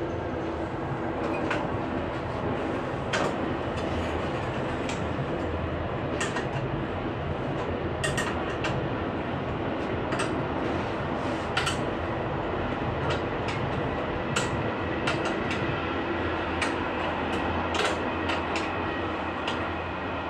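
A steady mechanical hum runs throughout. Over it come many short metallic clicks and taps as the espresso machine's internal brew mechanism is handled and worked with a hand tool.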